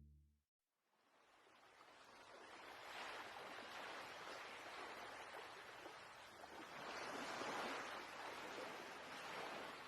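Ocean waves washing ashore, fading in after a brief gap and swelling and easing every few seconds; a music piece ends at the very start.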